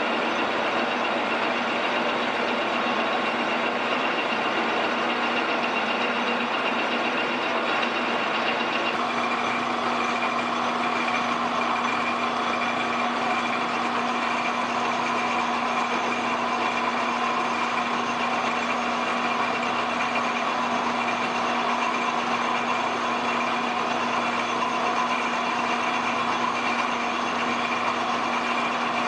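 Metal lathe running steadily while a drill and then a boring bar cut into the bore of a turning hub. The lathe's motor and gearing give a constant hum under a steady whine, whose pitch shifts abruptly about nine seconds in.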